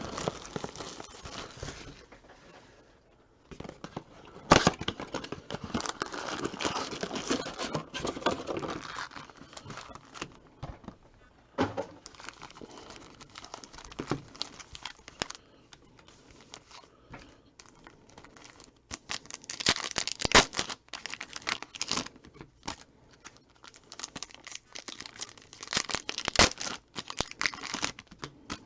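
Plastic and foil packaging of a football trading-card blaster box crinkling and tearing as the box is unwrapped and its packs opened: irregular rustling with a few sharp clicks.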